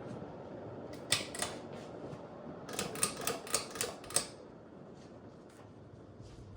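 Ceiling fan running with a steady whoosh, over which come a pair of sharp clicks about a second in and then a quick run of about seven clicks; the whoosh is a little quieter after the clicks.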